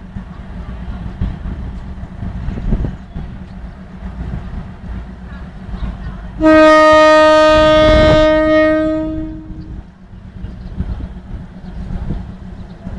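A train horn sounds one long blast, about three seconds, with two tones together, fading away at its end. A steady low rumble of an idling diesel runs underneath.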